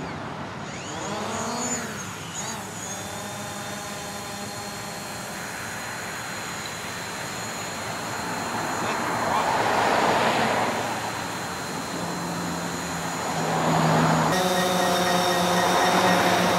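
Quadcopter drone propellers whining in flight, their pitch gliding up and down as the drones manoeuvre. Near the end a steady, multi-tone propeller hum starts suddenly as a white DJI Phantom hovers close by.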